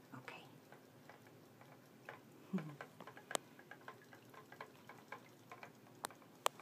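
Small plastic toy pieces clicking and tapping as they are handled on a tabletop: faint, irregular light clicks, with a sharper click about three and a half seconds in and two more near the end.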